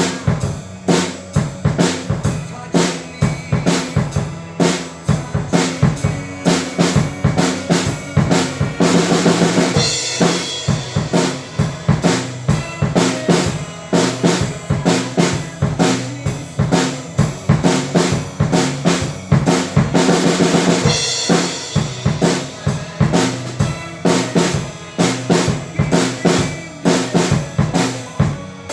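Drum kit played in a steady, busy beat, bass drum and snare with rimshots, with a cymbal crash about nine seconds in and again about twenty seconds in.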